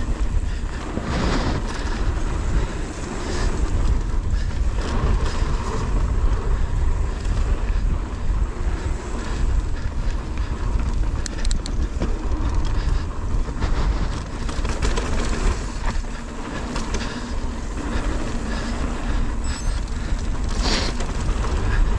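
Wind rushing over the action camera's microphone as a mountain bike rolls along a dirt trail, knobby tyres on dirt, with frequent short clatters and knocks from bumps.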